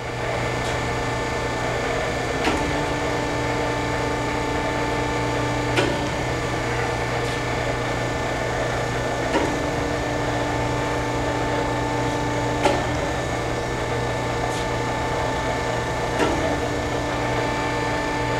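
Swisher Mark V vertical-spindle surface grinder running in its automatic cycle: a steady motor hum, with a tone that switches on and off as the grinding head sweeps back and forth. A sharp click comes every three to four seconds where the tone changes, at each reversal of the sweep, as the automatic downfeed steps the wheel down at one end.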